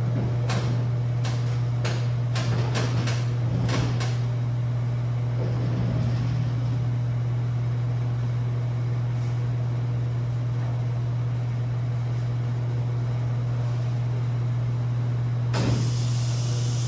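Metal clanks and knocks as a replacement Toyota 2GR-FE V6 engine is shifted on a pickup's liftgate platform, over a steady low hum. Near the end a steady hiss starts up as the liftgate begins to lower.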